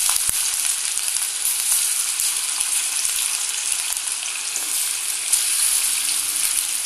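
Marinated chicken 65 pieces deep-frying in hot oil in a kadai: a steady, crackling sizzle.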